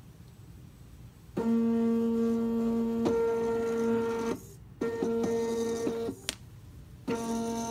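Motors of the magnet carriage beneath a robotic chessboard whining in a steady pitched tone as it moves a piece. The whine starts about a second and a half in, steps up in pitch partway, and stops twice between runs, with a sharp click in the second pause.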